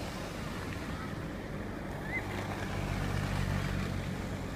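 Low steady car-engine hum heard from inside a car cabin, swelling about halfway through as a car approaches on the snowy road. A couple of faint high cries from children sledging on the hill rise above it.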